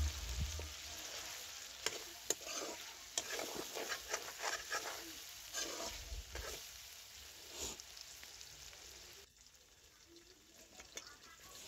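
Chicken pieces sizzling as they fry in oil in a metal kadai, stirred with a spatula that scrapes against the pan in repeated short strokes. The sound drops off abruptly about nine seconds in, leaving only a faint sizzle.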